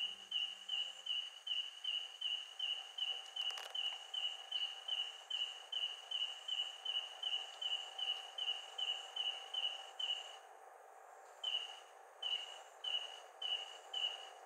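Cricket chirping in a steady rhythm, about two and a half short high chirps a second, breaking off for about a second near the end before starting again.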